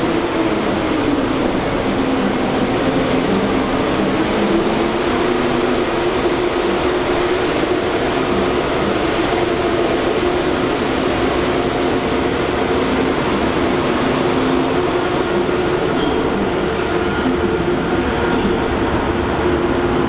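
A train running in a station: a steady rumble and hum with several held low tones, and a few sharp clicks about three quarters of the way through.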